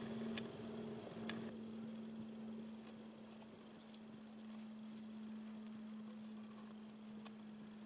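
Faint rustling and a few light clicks in the first second or two as nylon cord is threaded between hazel sticks, over a steady low hum.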